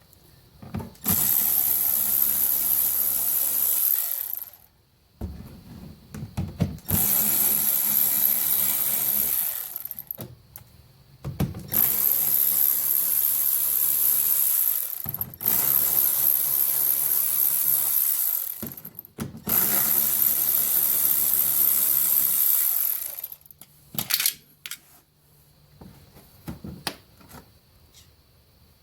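Power drill running in five runs of about three to four seconds each with short pauses between, as it spins out small bumper bolts. A few sharp clicks follow near the end.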